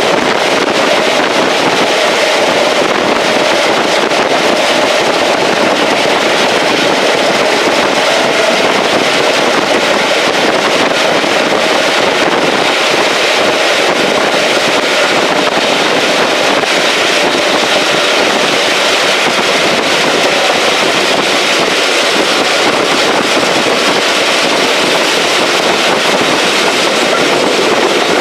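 Steady rushing noise of a moving train heard from on board, with wind buffeting the microphone.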